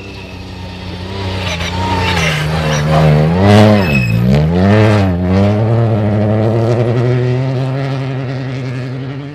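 Rally car engine approaching and passing at speed, growing louder. A little under halfway through, the revs drop and climb back twice, then hold high and steady as the car pulls away and fades before the sound cuts off.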